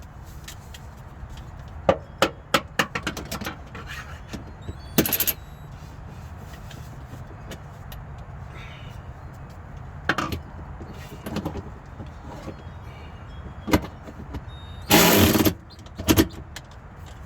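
Irregular clicks, knocks and rattles of car interior parts being handled and fitted around the gear shifter and console, over a steady low hum. There are two louder bursts of noise: a brief one about five seconds in and a longer one of about half a second around fifteen seconds in.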